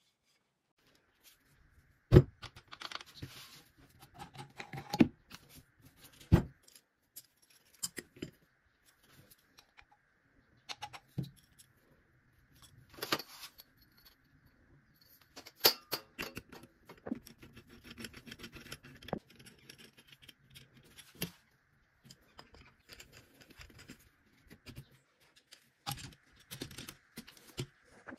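Scattered clicks, clinks and knocks of small metal parts and tools being handled and set down on a workbench. A faint steady high hum runs underneath.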